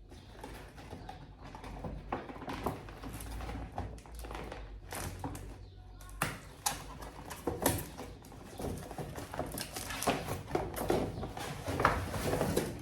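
Gift packaging being handled and opened: irregular rustling and crackling with scattered small clicks.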